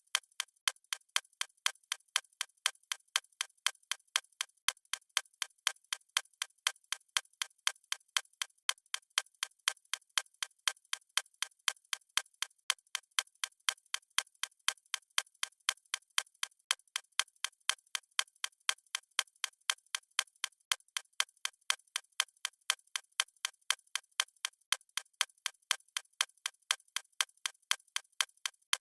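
A watch ticking: rapid, even, sharp ticks, several a second, without a break.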